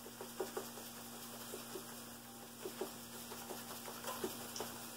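Grated Parmesan cheese being shaken from a shaker can onto fries: soft, irregular tapping and rattling, a dozen or so light taps spread through, over a steady faint hum.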